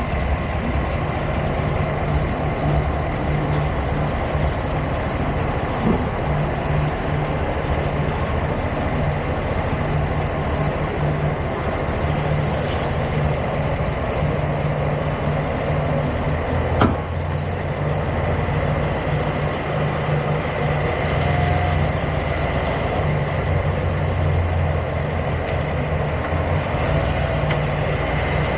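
Engine running steadily with a low hum, with a sharp pop about 17 seconds in and a fainter one about 6 seconds in.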